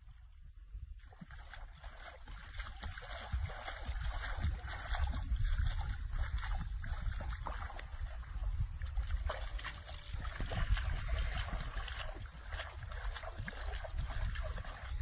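Water splashing and sloshing as a man wades and works a long-handled net through a shallow pond, a busy run of small irregular splashes that starts about a second in, over a steady low rumble.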